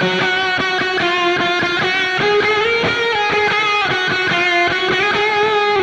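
Electric guitar through a NUX Cerberus multi-effects pedal playing a distorted rhythm part, with the pedal's boost switched on at its lowest 0 dB setting. The notes are sustained and rich in overtones, and change continuously.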